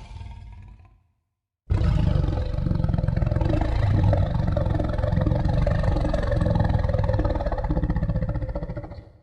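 Creature roar sound effect: a long, low, rough roar of about seven seconds that starts suddenly after a brief silence and fades away at the end. It follows the fading tail of a previous effect.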